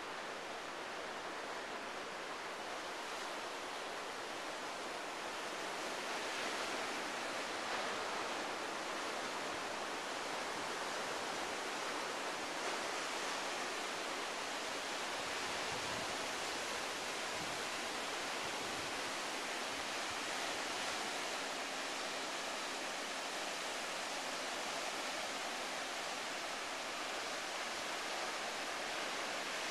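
Ocean surf breaking and washing over a rocky shoreline: a steady, rushing hiss of water, a little louder from about six seconds in.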